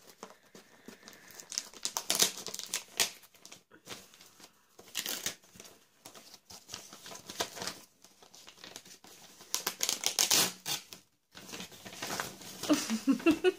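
Gift wrapping paper crinkling and tearing as a wrapped present is unwrapped by hand, in irregular bursts of rustling with short pauses.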